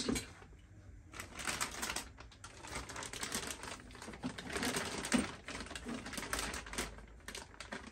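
Irregular clicking and rustling as small parts and plastic packaging are handled on a workbench, in rapid spurts with short pauses between.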